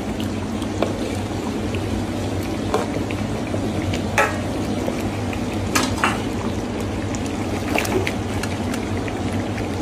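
Thick chilli sauce with chicken simmering and bubbling in a pot as a spoon stirs it, with a few clinks of the spoon against the pot. Near the end, sliced onions drop into the sauce.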